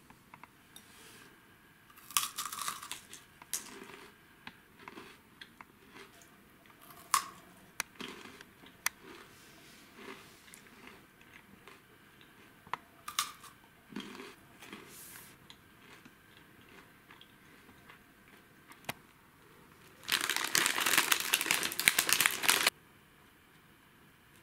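Crinkly plastic snack packaging being handled, with scattered crackles and clicks, then loud crinkling and tearing for about two and a half seconds near the end, as a snack bag is torn or opened.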